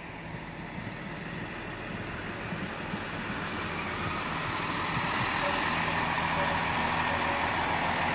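Two coupled GWR Class 165 Turbo diesel multiple units pulling into the platform, their diesel engines running under the rumble of wheels on the rails. The sound grows steadily louder as the cars draw alongside.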